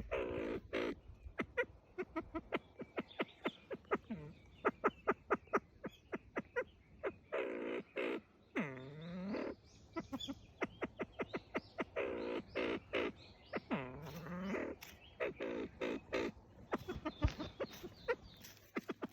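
Copper pheasant calling in threat: quick runs of short, sharp clucks, broken by several longer, lower calls that slide in pitch.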